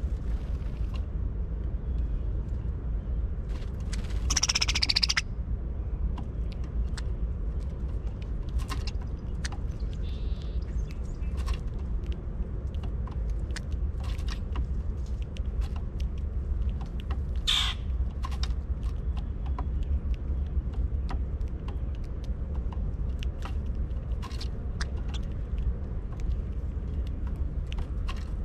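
Brown-headed cowbirds calling: a loud rapid chatter about four seconds in, lasting just over a second, and a shorter sharp call a little past halfway. Faint scattered ticks in between, over a steady low rumble.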